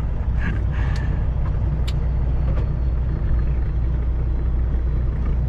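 Heavy truck's diesel engine and road noise heard inside the cab while driving: a steady low rumble, with a couple of faint clicks about one and two seconds in.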